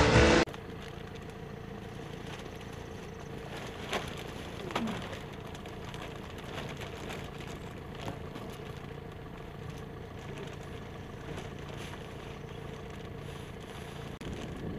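Tractor engine idling steadily, with a few short clicks and rustles about four and five seconds in.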